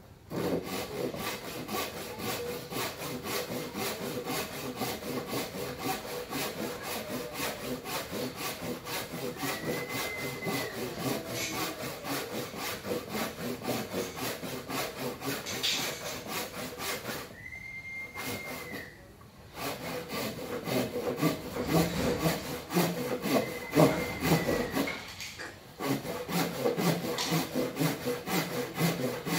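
Hasston Super Saw Jet Cut hand saw cutting through a wooden beam, rasping back-and-forth strokes at roughly two to three a second, with a short pause about two-thirds in and another near the end.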